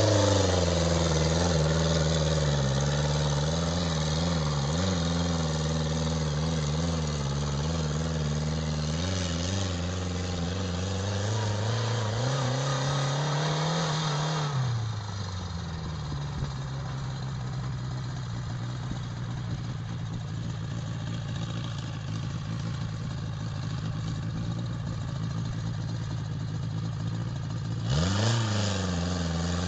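Homemade off-road buggy's 1600 cc turbocharged engine running under load, its pitch wavering and climbing, then dropping to a lower steady note about halfway through. Near the end a quick rev rises and falls back.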